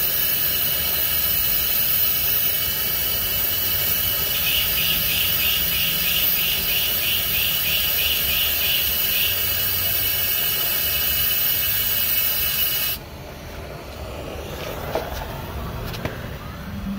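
Gas torch flame hissing loudly and steadily while it heats a two-stroke motorized-bike exhaust pipe to burn off carbon buildup. The hiss cuts off abruptly about thirteen seconds in, leaving quieter clinks and handling noise.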